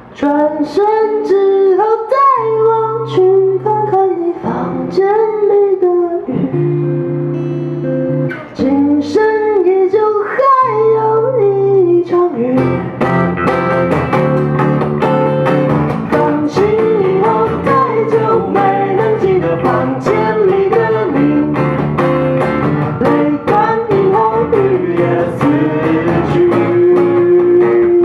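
A singer singing a ballad to an unplugged acoustic guitar. The guitar plays held chords for about the first twelve seconds, then strums fuller and more continuously under the voice.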